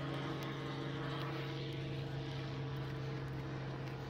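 A distant engine drone holding one steady pitch.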